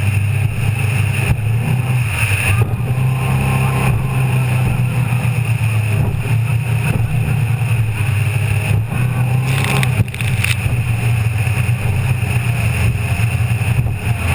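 Donzi go-fast powerboat's engine running steadily at speed, a constant low drone under a rush of wind and water, with a few brief knocks around ten seconds in.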